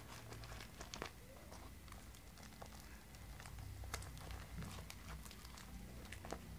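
Faint crinkling of paper with scattered light clicks and taps from handling a handmade paper-and-cardboard craft; the sharpest tap comes about four seconds in.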